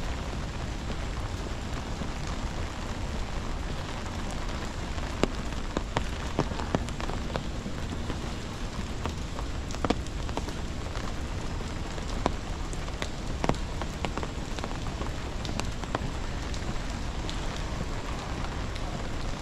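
Steady rain falling on the ground, an even hiss with scattered sharper taps of heavier drops here and there.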